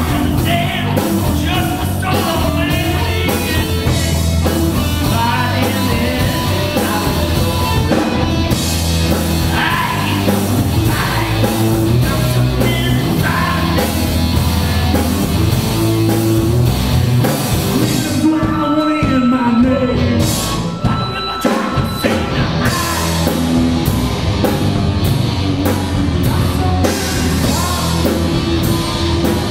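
Live rock trio playing: electric guitar, electric bass and drum kit, with a sung lead vocal at times. The cymbals and drums drop back for a couple of seconds past the middle, then come back in.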